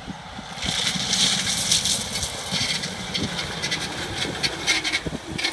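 Chevrolet Astro van's 4.3 L V6 pulling up a steep gravel slope, with a loud, rough, high-pitched rubbing scrape from the engine bay that swells in about half a second in and comes in irregular pulses: a linkage bar rubbing on the main pulley because of worn-out motor mounts.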